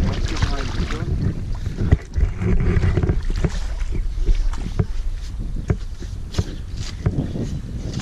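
Terriers scrabbling and digging at a rat hole in loose earth, with a spade scraping and chopping into the soil, many short scrapes and knocks. A dog whines briefly near the start. Wind and handling rumble on the microphone lie underneath.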